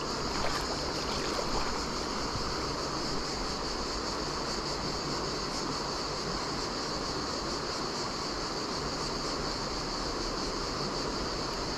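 Shallow river flowing over riffles and stones: a steady rushing of water, with a steady high-pitched hiss over it.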